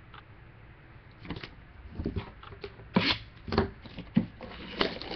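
Hands opening a sealed trading card box. After a quiet second there are half a dozen irregular knocks and scrapes as the box and its lid are handled and pulled open.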